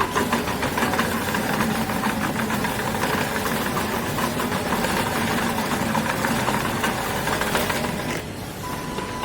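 Remote-control electric lawn mower running, its motor and cutting blades making a steady mechanical whir with a fast rattle. It eases off a little about eight seconds in.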